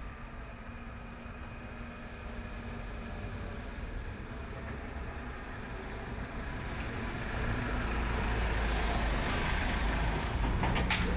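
Van engine and tyres approaching, growing steadily louder as the van draws near, with a few sharp clicks near the end.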